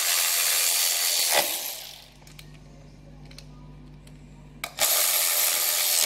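Cordless electric ratchet running in the ignition coil's mounting screws, in two bursts: one lasting about the first two seconds and a shorter one from about five seconds in.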